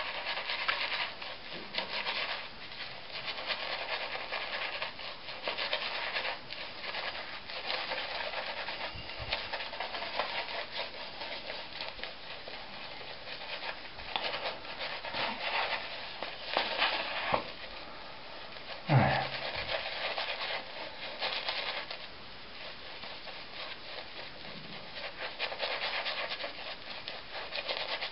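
Mühle Finest badger shaving brush scrubbing shaving soap into lather on a stubbled face: a continuous bristly scratching and rubbing. One brief louder sound comes about two-thirds of the way in.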